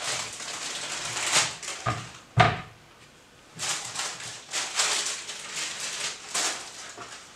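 Baking parchment crackling and rustling as it is peeled off a set slab of rocky road and scrunched up, with one sharp knock about two and a half seconds in.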